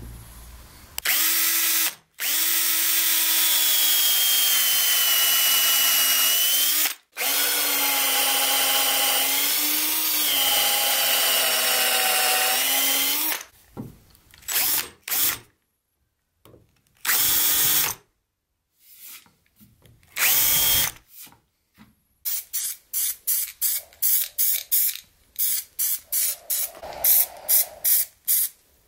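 Power drill with a countersink bit boring into a wooden board: a steady motor whine, stopping briefly twice, then a few short trigger bursts. Near the end comes a quick run of short, even pulses, about three a second.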